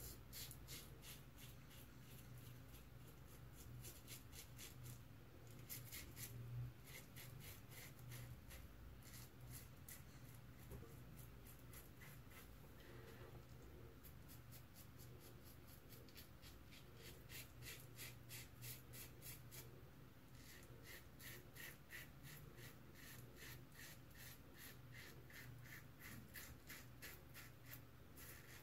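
Merkur 34C double-edge safety razor with an Astra SP blade scraping through lathered stubble on the first pass: runs of quick short strokes, several a second, with brief pauses between them.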